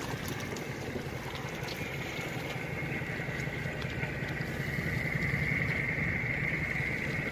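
Fishing boat's engine running steadily at idle, a low even rumble. A high steady whine joins in around the middle and grows louder.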